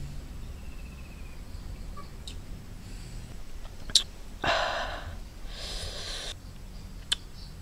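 A man's two heavy breaths, about a second apart, the first one the loudest, with a sharp click just before them.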